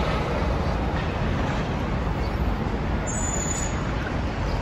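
Steady city street traffic noise from passing cars and buses, heaviest in the low end, with a short high squeal about three seconds in.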